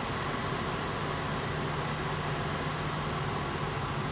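Y1 diesel railcar moving slowly up to a stop, its diesel engine running with a steady low hum.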